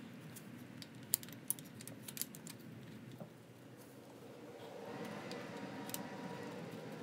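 Light metallic clicks and taps of rocker arms being set by hand onto the pushrods and valve stems of a Polaris Fuji-built twin's cylinder head, several quick clicks in the first half.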